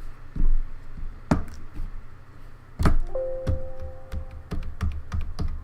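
Single keys on a Logitech K360 keyboard being pressed one at a time, separate clicks and thunks, as the keys are tested for sticking after cleaning. A held electronic tone sounds for just over a second about three seconds in.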